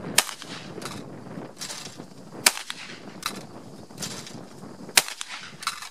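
Fabarm L4S 12-gauge semi-automatic shotgun firing three shots at clay targets, about two and a half seconds apart.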